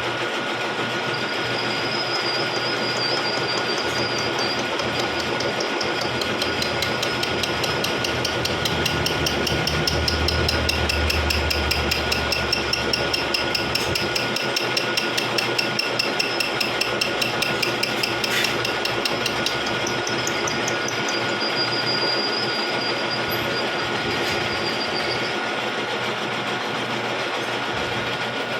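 Vertical milling machine cutting the teeth of a spur gear blank. It runs steadily with a constant whine and a fast, even ticking of the cutter, which gets louder through the middle of the cut and then eases off.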